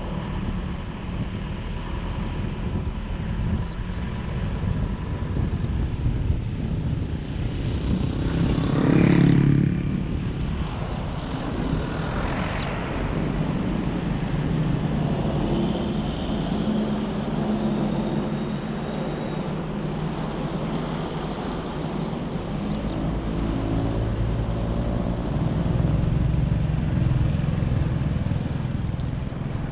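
Road noise from a moving vehicle: an engine running under steady tyre and wind rumble. Another vehicle passes close about nine seconds in, the loudest moment, and a second one passes a few seconds later.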